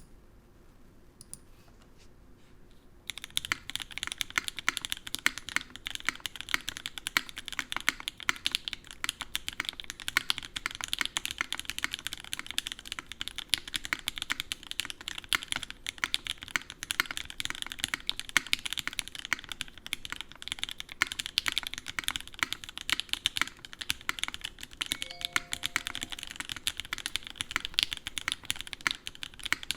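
Onyx mechanical keyboard being typed on fast, a continuous run of key presses starting about three seconds in. It has lubed and filmed Gateron Oil King linear switches on a full aluminium plate, with GMK keycaps.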